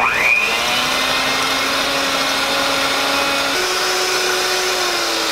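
Electric hand mixer switching on and whipping softened butter with olive oil and coconut oil in a stainless steel bowl, its motor whine rising quickly as it starts on a slow speed. About three and a half seconds in, the whine steps up to a higher pitch as the mixer goes up a speed.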